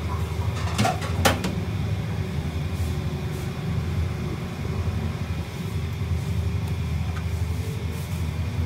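A steady low machine hum, with a few sharp clicks and knocks about a second in, the loudest just after one second.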